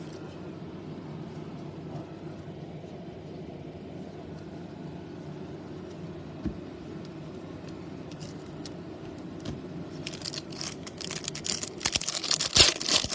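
A low steady hum with a single click about six and a half seconds in. From about ten seconds in come dense crinkling and clicking as trading card packs and cards are handled, louder near the end.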